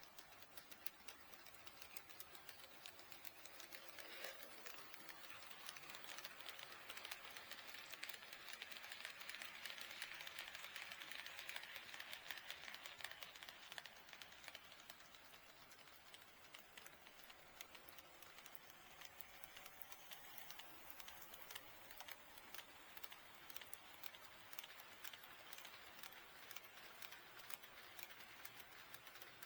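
Faint HO-scale model train running on KATO Unitrack: quick light clicking of wheels over the rail joints with a running hiss that grows from about four seconds in, is loudest around ten to twelve seconds, and fades away by about sixteen seconds as the train passes and recedes.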